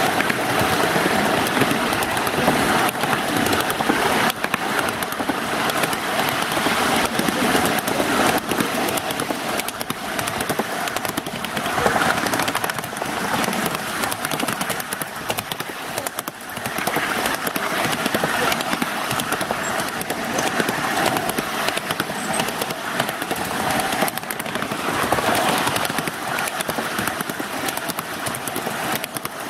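Cars of a ride-on miniature railway rolling along the track, heard from aboard: a steady clattering rattle of wheels on rail, with many quick clicks.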